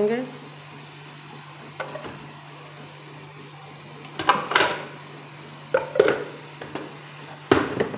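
Ceramic plate and plastic food-chopper bowl and lid being handled: fried onions are tipped in and the lid is fitted on, giving a few sharp clatters about four, six and seven and a half seconds in, over a faint steady hum.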